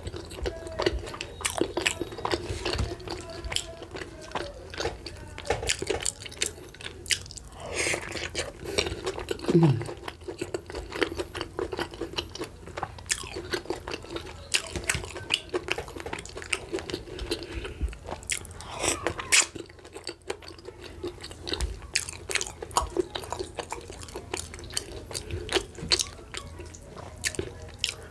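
Close-miked chewing and wet mouth sounds of a person eating boiled cocoyam with pepper dip and dried mackerel by hand, with many small smacks and clicks.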